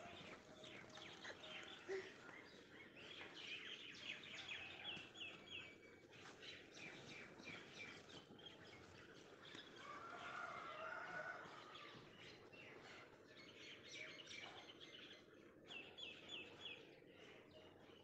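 Faint outdoor birdsong: small birds chirping, with quick runs of high repeated notes about five seconds in and again near the end.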